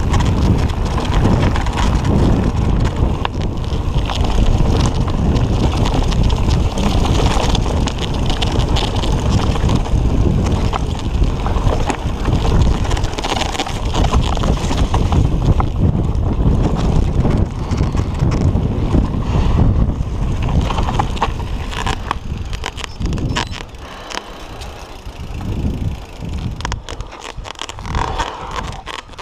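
Mountain bike riding fast down a dirt trail: wind buffeting the microphone over tyre rumble, with frequent knocks and rattles from the bike on the rough ground. It eases off over the last several seconds as the bike slows.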